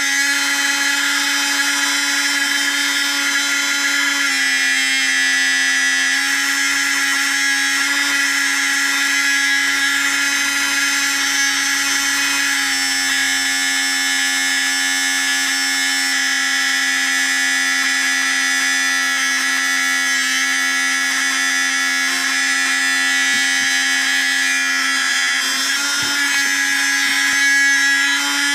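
Small electric motor running at a steady speed with a constant whine that starts abruptly, driving a homemade mini generator model.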